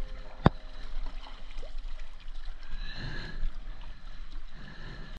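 Kayak paddle strokes in choppy sea: water splashing and gurgling around the blades and hull. A single sharp knock about half a second in.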